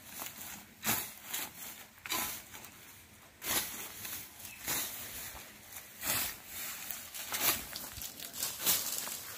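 Long-handled billhook (a koduval blade on a pipe) slashing through dry weeds and brush, a swishing cut about every second and a half, about seven strokes, with rustling of cut stems between them.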